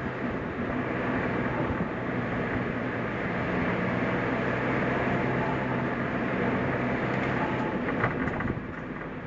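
Suzuki Jimny engine running steadily with tyre and road noise while driving, heard from inside the cabin. A brief click sounds about eight seconds in, and the engine eases off slightly near the end.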